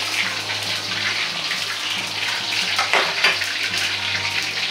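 Chikuwa and shimeji mushrooms deep-frying in hot oil in a wok, a dense crackling sizzle, while a perforated skimmer lifts them out. There are two sharper clicks about three seconds in.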